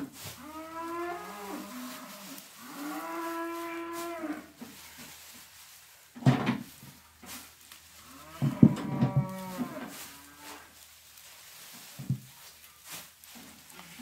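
Cows mooing at feeding time: three long calls, the first about a second in, the second right after it with a steadier pitch, and a third about eight and a half seconds in. Between the calls come a few sharp knocks.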